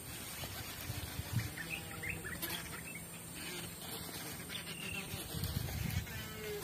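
Wild birds chirping and calling, in short notes and a few brief gliding calls, over a steady outdoor background with a faint high, steady whine. A few low thumps from handling or wind on the microphone.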